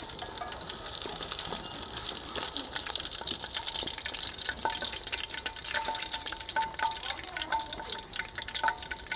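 Fish pieces deep-frying in hot oil: continuous sizzling with fine crackles.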